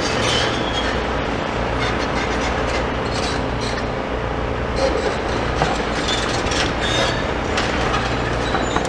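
Steady outdoor rumble, heaviest in the low end and swelling and easing every couple of seconds, with a few faint clicks scattered through it.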